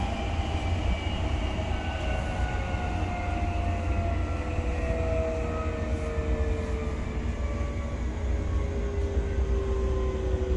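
Odakyu 3000 series electric train's traction motors whining in several tones that fall slowly in pitch over a steady low rumble: the train is slowing down.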